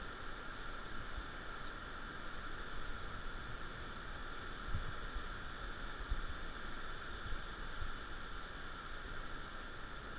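Wind buffeting the action camera's microphone in irregular low rumbles, stronger about five and six seconds in, over a steady hiss.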